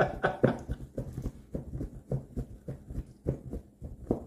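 A cloth towel being shaken out hard, flapping and snapping in a quick, even run of strokes, about four a second.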